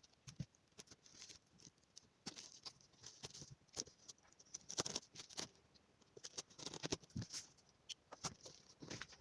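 Irregular scratching, rustling and small clicks of packaging being handled as the box of a mitre saw is opened, a little louder at about five and seven seconds in.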